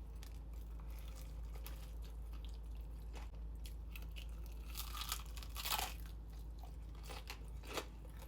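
Close-mic chewing of crispy fried chicken skin: irregular crunches, loudest a little past the middle.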